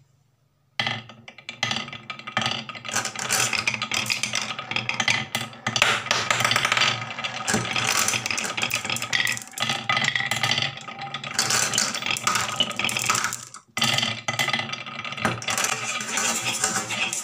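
Many glass marbles and wooden balls rolling and clacking down a wooden wave-shaped marble run, a dense continuous wooden rattle. It breaks off for a moment about two-thirds of the way through, then starts again.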